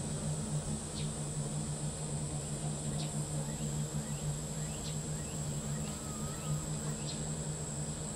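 A steady low hum under a steady high-pitched insect drone, with a few faint short chirps scattered through.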